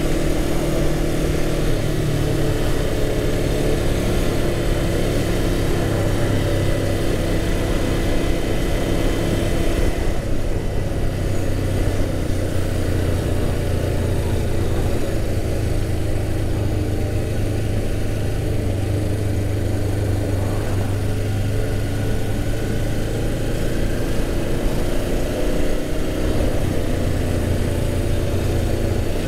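Motorcycle engine running steadily while riding. About ten seconds in, its note drops to a lower pitch and holds there.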